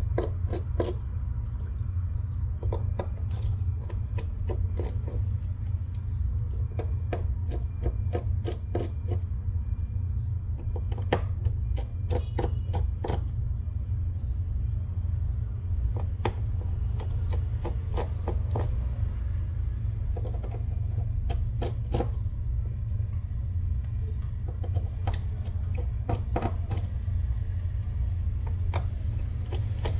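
Scattered small clicks and ticks of a Phillips 1.5 precision screwdriver backing tiny screws out of a Xiaomi Poco X3 Pro's midframe, and of the screws being set down, over a steady low hum. A faint short high beep recurs about every four seconds.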